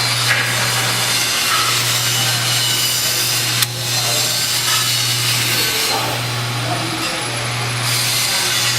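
Machinery running: a steady low hum under a rough, even hiss, with one sharp click about three and a half seconds in.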